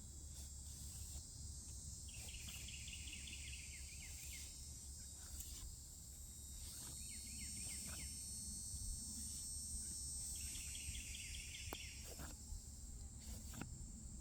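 A steady high insect chorus, with a short trilled call repeating every few seconds and faint light strokes of a knife blade drawn over the rough side of a leather strop.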